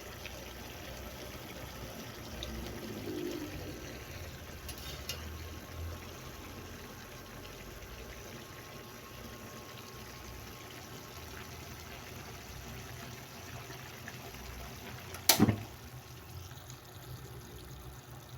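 Faint, steady sound of liquid, with a single sharp knock about fifteen seconds in.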